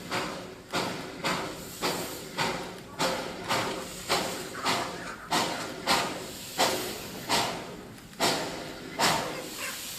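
Darjeeling Himalayan Railway steam locomotive chuffing, a rhythmic exhaust beat of about two chuffs a second that spaces out slightly toward the end.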